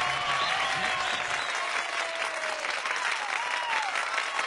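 Audience applauding and cheering: a dense patter of clapping with voices calling out over it.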